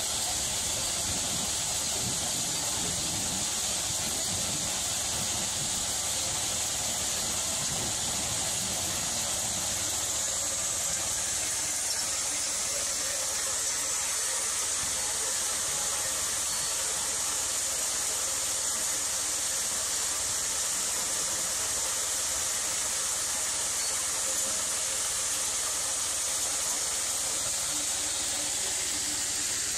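Industrial hammer mill and its discharge conveyor running steadily while breaking up spent shotgun shells, a loud continuous mechanical noise with a strong high hiss and a rumble underneath.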